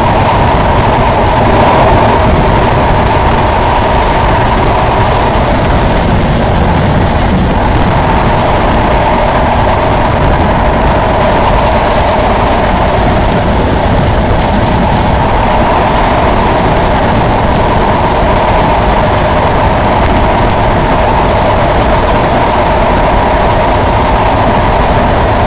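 Sundarban Express passenger train running at speed along an elevated viaduct, heard from an open coach doorway: a loud, steady rush of wheel and rail noise with no let-up.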